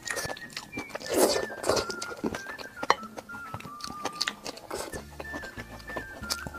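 Eating sounds: chopsticks clicking against a glass bowl and mouthfuls being chewed, in short irregular clicks and smacks. A soft background melody of single held notes runs underneath.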